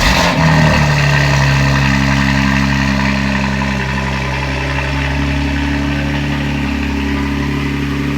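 BMW X3 M Competition's twin-turbo inline-six, fitted with new downpipes and mid pipe, just started: a brief flare of revs, then settling into a steady idle.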